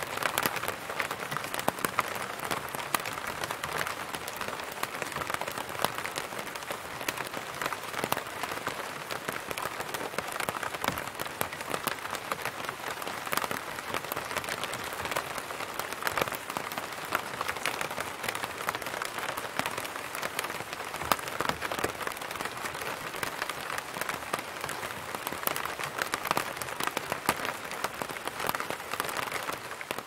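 Rain falling steadily on an umbrella canopy: an even hiss of many drops, with lots of sharper single drop hits.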